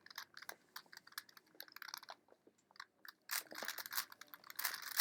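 Plastic clicking and clacking of a 4x4 Rubik's cube as its layers are turned quickly by hand, in irregular runs of turns that come thicker in the second half.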